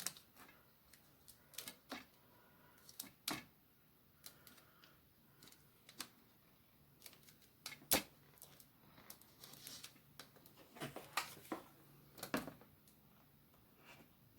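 Irregular light clicks and taps of small craft pieces being handled and set down on a tray during gluing, the sharpest about eight seconds in, with a cluster of them near the end.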